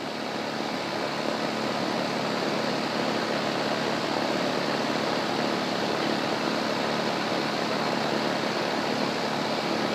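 Outdoor air-conditioning condenser unit running steadily, its fan blowing air out the top of the unit in a constant rushing noise with a faint hum. The condenser is working at full capacity.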